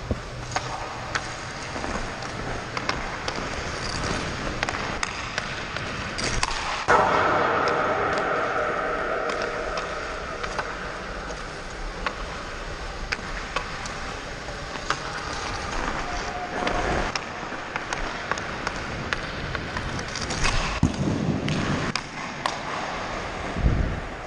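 Hockey skates scraping and carving the ice, with sharp clicks of a stick handling a puck. About seven seconds in, a loud crack, a shot or a puck striking something hard, leaves a ringing that fades over several seconds. More hard knocks come near the end.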